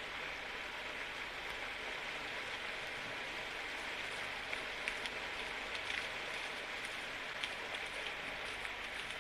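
Steady rushing of a shallow stream's running water, with scattered light crunches, like footsteps in snow, from about halfway through.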